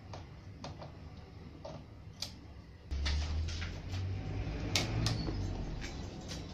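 Scattered small clicks and taps of a screwdriver and plastic cable connectors as an LED TV's power supply board is unscrewed and its wiring unplugged. A low rumble comes in about three seconds in.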